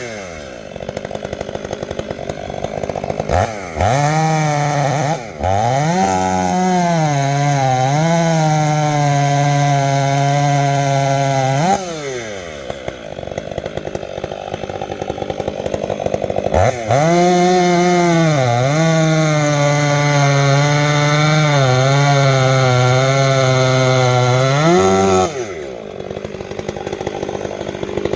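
Two-stroke Stihl chainsaw idling, then run at full throttle twice, for about six and eight seconds, with the revs sagging and recovering as the chain bites into the wood. It drops back to idle between the runs and again near the end.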